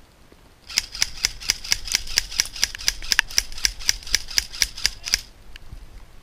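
Airsoft AK-74 rifle firing one long sustained burst of sharp, regular clacks, about five a second, over a steady high whine, starting just under a second in and stopping abruptly about four and a half seconds later.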